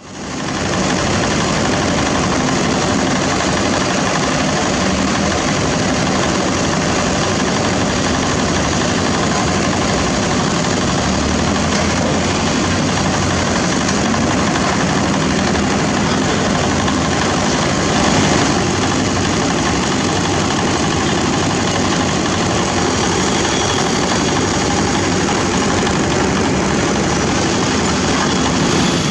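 Diesel engine of a Komatsu PC200 hydraulic excavator running steadily while it digs and loads a dump truck, mixed with street traffic noise.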